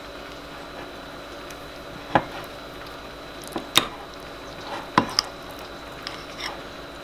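A metal spoon scooping thick blue cheese dressing from a ceramic bowl, with several sharp clinks of spoon on bowl rim, about two, three and a half to four, and five seconds in, and a few fainter taps near the end.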